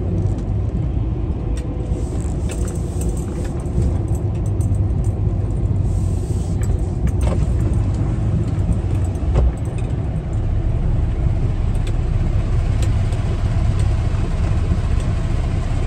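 Semi truck's diesel engine running steadily, heard from inside the cab as a low rumble, with light rattles and clicks scattered through it.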